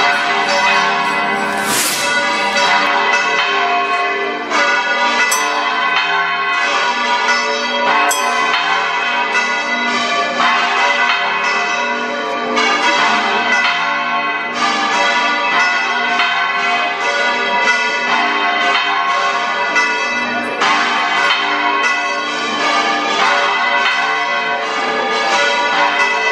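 Church bells pealing, with a rapid run of overlapping strikes and their tones ringing on together.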